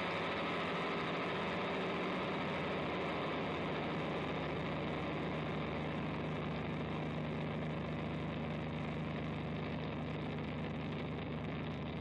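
Electric guitar with a dual-rail humbucker played through a Haggtronix Grassman Fuzz pedal into a Fender Hot Rod Deluxe tube amp's dirty channel: a dense, heavily fuzzed tone held steadily. One low note comes through more strongly in the second half, and the level eases slightly near the end.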